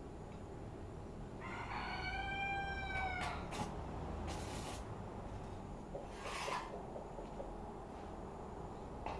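A rooster crows once in the background, a single long call lasting nearly two seconds. After it come three short, noisy scrapes or knocks a second or two apart.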